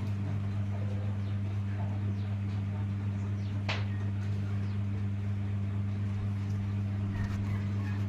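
A steady low hum with faint high chirps over it, and one short sharp sound about three and a half seconds in.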